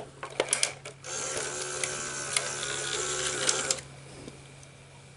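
Betamax VCR taking in a cassette: a few clicks as the cassette goes in, then the loading mechanism and reel motor whirr for about three seconds and stop abruptly. The machine is threading the tape and winding it forward a little past the leader before play engages.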